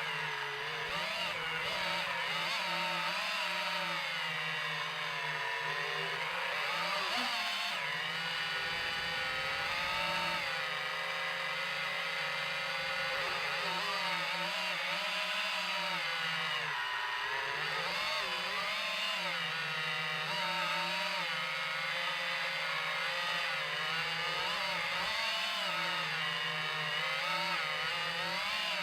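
DJI FPV drone's motors and propellers whining, the pitch rising and falling constantly as the throttle changes in flight.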